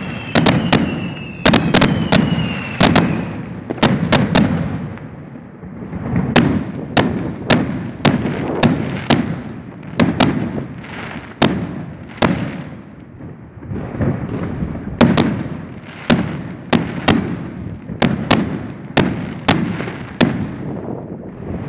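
Aerial fireworks shells bursting in rapid succession, sharp bangs about two a second with rumbling echoes, easing off briefly twice. Near the start a whistle glides downward.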